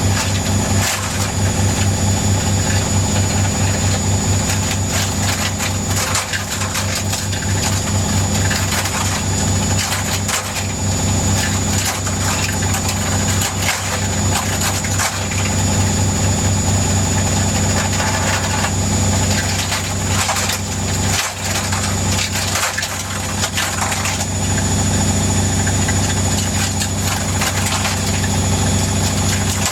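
ARDO Young Anna 810 washing machine on its spin cycle, the drum turning with a steady pulsing hum while a knocking rattle sounds throughout, as if balls had been poured inside.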